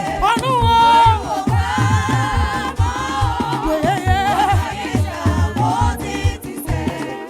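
Gospel praise music: voices singing in a wavering, melismatic line over a steady drum and bass beat.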